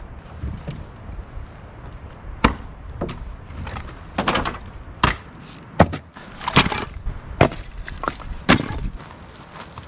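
Split firewood pieces knocking and clacking against each other and being dropped onto a pile, a string of sharp irregular wooden knocks about one a second.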